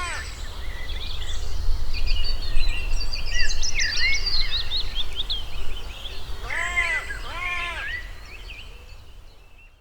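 Dawn chorus of songbirds chirping, with a crow cawing just after the start and twice more about seven seconds in, over a steady low rumble. The recording fades out near the end.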